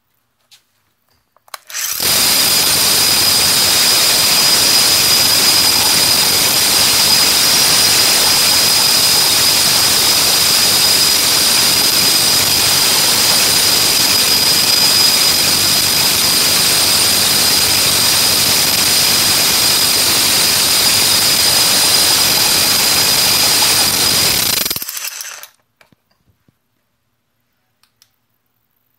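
Bosch RH540M rotary hammer running free with its brush cover off and the brushes exposed: the motor starts about two seconds in and runs at a steady speed with a high whine for some twenty seconds, then is switched off and spins down quickly.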